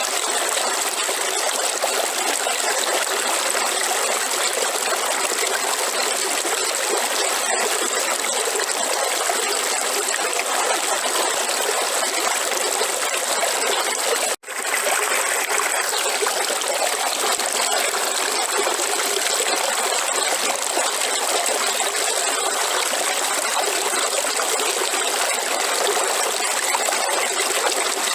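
River water flowing with a steady trickling rush. It cuts out for an instant about halfway through, then carries on unchanged.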